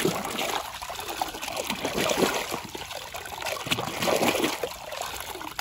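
Water splashing and sloshing continuously as a plastic toy is swished back and forth by hand in shallow muddy water to wash off the mud.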